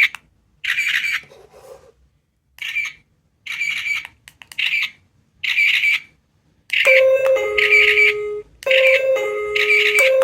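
Small electronic capsule-toy sound gadgets: a run of short high squeaky chirps about once a second, then, about two-thirds of the way in, a two-note electronic ding-dong chime that keeps repeating alongside them.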